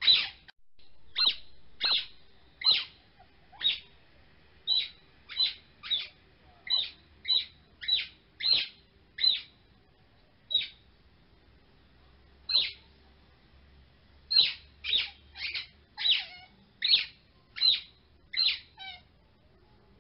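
A series of short, high chirps, one to two a second, each a quick downward sweep, with a gap of a few seconds around the middle.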